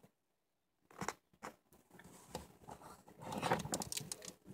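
Plastic action figures clattering and rustling against each other and the sides of a plastic storage tub as they are rummaged through, starting with a few clicks and growing busier and louder toward the end.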